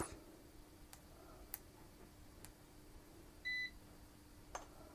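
A Kaiweets ST600Y digital multimeter gives one short, high beep from its buzzer about three and a half seconds in, as one of its buttons is pressed, with a few faint clicks around it.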